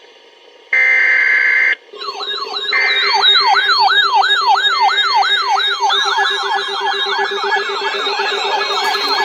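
Electronic sirens yelping in fast rising-and-falling sweeps, about two and a half a second, with a second siren overlapping from about six seconds in, over a steady low hum. A short loud steady tone sounds about a second in, just before the sirens start.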